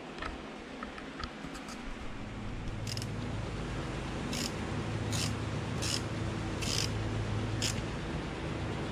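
Screwdriver tightening a screw on a motorcycle battery terminal: six short metallic scrapes, each turn about a second apart, starting about three seconds in. Under them runs a steady low hum that starts about two seconds in.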